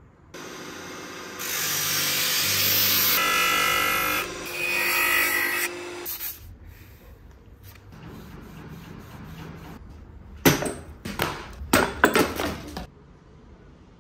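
Workshop tool sounds: a loud power tool runs for about five seconds, followed by softer rubbing, then a quick run of sharp knocks near the end.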